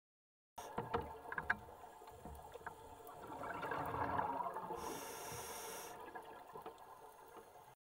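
Scuba diver breathing through a regulator underwater: a few clicks, then a bubbling exhalation that swells through the middle, followed by a short high hiss of the regulator.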